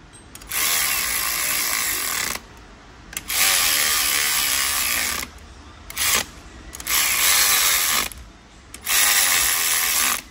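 Cordless electric ratchet running water pump bolts down, in about five bursts of one to two seconds each with short pauses between.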